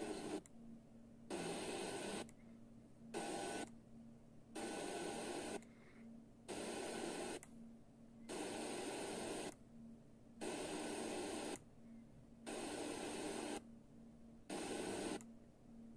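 FM receiver hissing with static in bursts about a second long, roughly every two seconds, as the tuner steps through weak or empty frequencies and mutes between steps. A faint steady low hum runs underneath.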